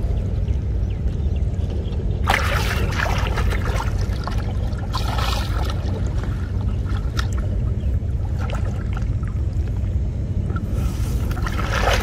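Muddy floodwater sloshing and splashing around a person's legs as he wades through it and handles a fishing net, in several uneven bursts, over a steady low rumble.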